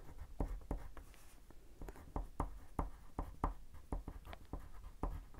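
Wax crayon rubbed back and forth on paper to colour a swatch: a run of short scratchy strokes, about three a second.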